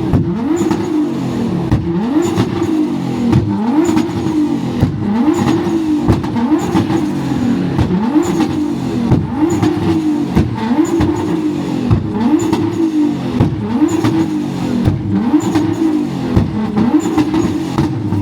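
Nissan GT-R engine revved over and over in quick throttle blips, the pitch shooting up and dropping back about every 0.7 seconds, with sharp pops from the exhaust.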